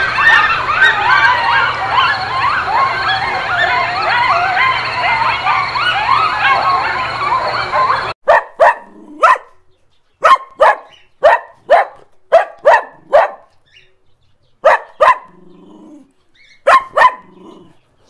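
A coyote chorus of many quick, wavering yips and yelps over one another, which cuts off about eight seconds in. A dog then barks, a dozen or so short sharp barks, mostly in pairs with pauses between.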